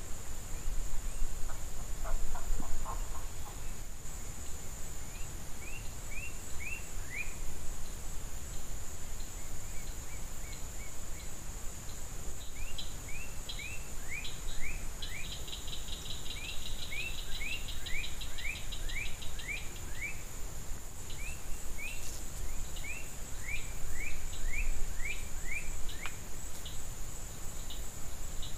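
Outdoor natural ambience: a steady high-pitched insect buzz, with a bird calling in runs of quick down-slurred chirps and a short fast trill partway through, over a low rumble.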